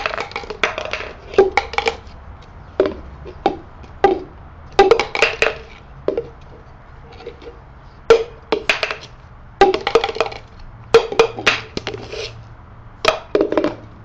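Hand claps and a cup tapped and knocked down on a tabletop in a cup-song pattern, in short groups of strikes that repeat in a steady rhythm.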